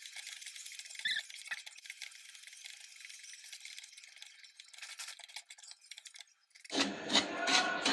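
Wooden spatula stirring and scraping semolina roasting in ghee in a nonstick frying pan: a faint soft scraping with light ticks. Near the end it turns much louder, with quick rasping strokes of the spatula against the pan.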